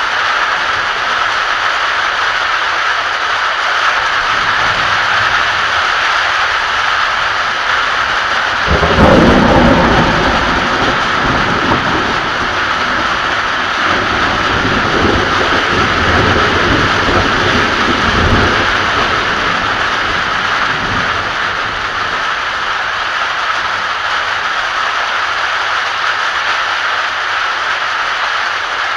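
Heavy rain hissing steadily. About nine seconds in, a sudden crack of thunder breaks into a deep rolling rumble that dies away after about ten seconds.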